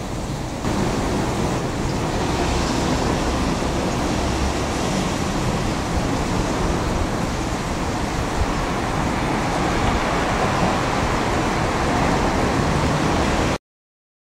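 Steady rushing outdoor noise with no distinct events. It gets a little louder under a second in and cuts off abruptly near the end.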